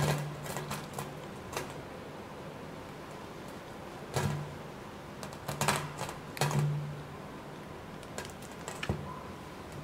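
Hands squishing and folding a big mass of mixed slimes, floam with foam beads among them, in a stainless steel bowl: irregular wet clicks, pops and crackles, with louder bursts about four, five and a half and six and a half seconds in.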